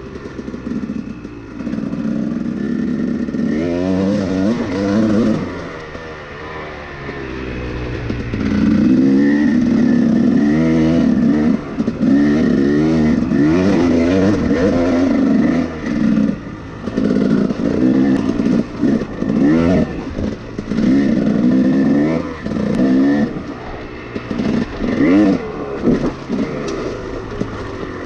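Husqvarna TC 300 dirt bike engine revving up and down as it is ridden, the pitch rising and falling over and over. There is a softer stretch about a quarter of the way in, then the throttle is chopped off and back on every second or two.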